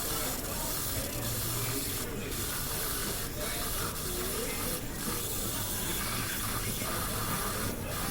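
Self-service coffee machine dispensing into a paper cup: a steady hiss of liquid pouring, with brief dips every second or so.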